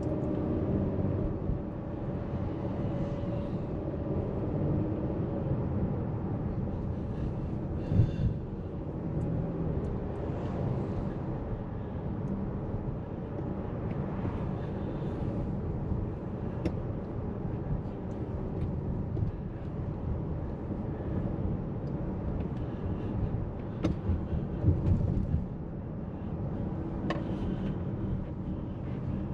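A car being driven in city traffic, heard from inside the cabin: a steady low rumble of engine and road noise. There is a sharp knock about eight seconds in and a few more about three-quarters of the way through.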